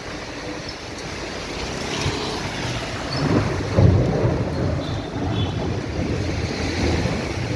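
Wind gusting against the microphone, a low rumble that swells and is strongest about four seconds in, over a steady hiss of wind-driven precipitation.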